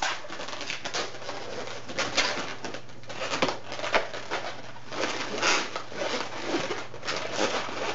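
Latex twisting balloon squeaking and rubbing as it is twisted and handled, in irregular short squeaks and crackles.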